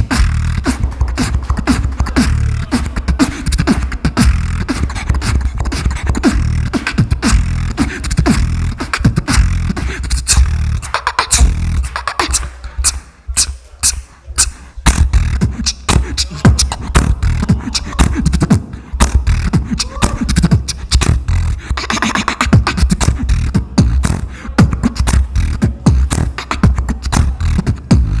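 Solo beatboxing into a handheld microphone: fast, dense percussive mouth sounds over a continuous deep bass. About twelve seconds in the beat thins to a few sparse hits, then the full beat comes back after about three seconds.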